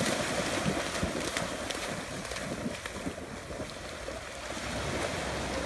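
Wind buffeting the microphone over small waves washing onto the shore, a steady rushing noise with a few short splashes and clicks.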